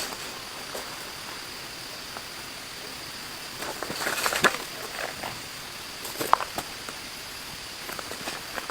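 Steady hiss of rain with scattered small knocks and clicks, the sharpest about four and a half and six and a half seconds in.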